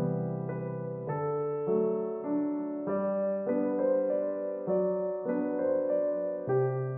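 Background piano music, a new note or chord about every half second.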